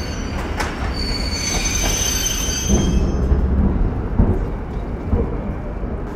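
Train rolling with a steady low rumble, its wheels squealing in thin high tones from about one to three seconds in, with a few soft knocks.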